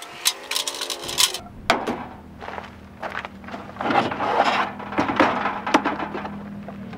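Clicks, knocks and light clatter of a two-burner camp stove being set up on an aluminium countertop, its lid and wind screens swung open, then a plastic storage bin slid out with a rustling scrape and its lid lifted. A low steady hum sets in about a second in.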